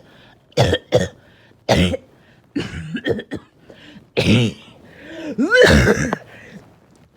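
A person coughing hard and repeatedly in a coughing fit, the short harsh coughs coming in bunches. About five and a half seconds in there is a strained, pitched breath between the coughs; the fit comes with difficulty breathing.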